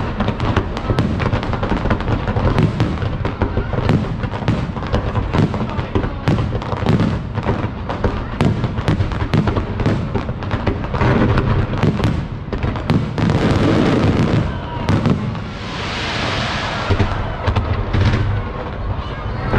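Aerial fireworks display: a dense, continuous barrage of shell bursts and booms, with a spell of hissing about sixteen seconds in.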